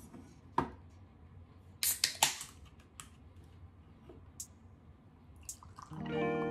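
Ring-pull on a can of non-alcoholic beer cracked open with a short fizzing hiss about two seconds in, among a few light clicks. Guitar music starts near the end.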